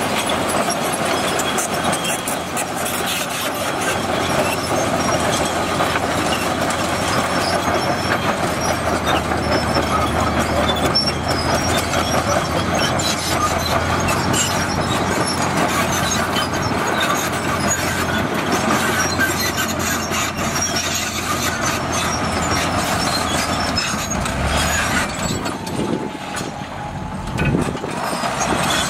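Komatsu D65PX crawler bulldozer working: its diesel engine running under load while its steel tracks clank steadily as it pushes dirt.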